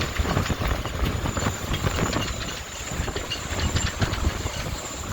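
Hurricane-force wind gusting and buffeting the microphone in an uneven rumble, with many short clicks and knocks throughout.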